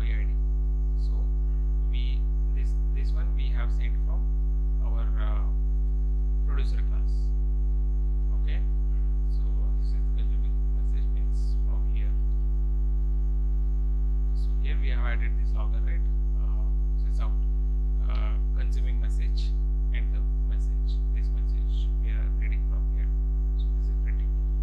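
Steady electrical mains hum, a low, unchanging buzz with a row of overtones, with a few faint brief sounds over it.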